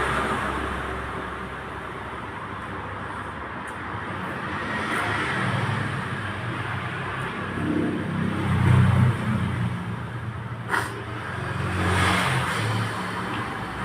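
Road traffic: a motor vehicle engine passes, rising and falling in level and loudest a little past halfway. There is one sharp click about three-quarters of the way through.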